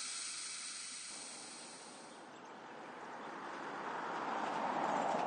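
A four-wheel-drive vehicle towing a boat trailer approaches and passes close by on a sealed road, its tyre and engine noise swelling to its loudest near the end. A steady high hiss fades out about two seconds in.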